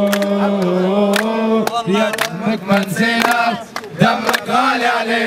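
Men chanting a protest song together, led by a man singing into a handheld microphone in long, held phrases, with sharp hand claps among the voices.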